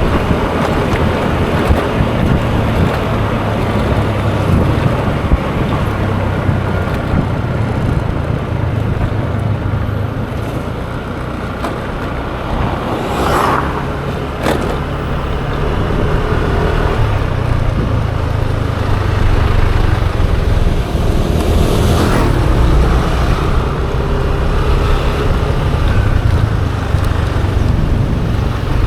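Yamaha Aerox 155 scooter's single-cylinder engine running under way, with wind on the microphone and road traffic around it. Two vehicles swell up and fade as they pass, about halfway through and again a little later.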